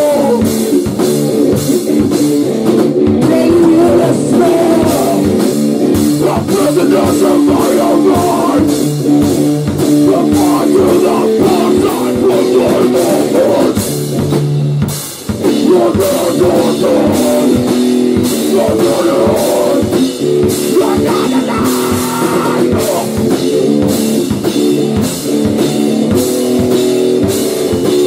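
Loud rock band playing, with a hard-hit drum kit keeping a fast, steady beat under guitar. The band drops out briefly about fifteen seconds in, then comes back in.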